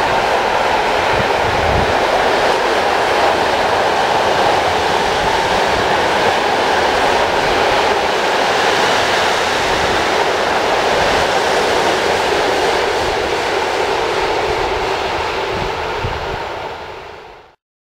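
Loaded timber wagons of a freight train rolling past on steel rails: a steady, loud rolling noise of wheels on track with occasional low thuds. It fades out quickly near the end.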